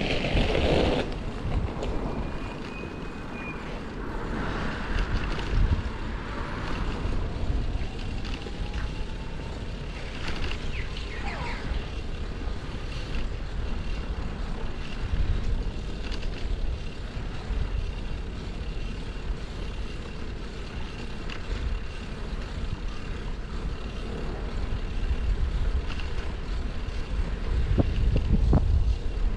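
Street ambience: steady low rumble of city traffic with wind noise on the microphone, swelling louder near the end as a vehicle passes close.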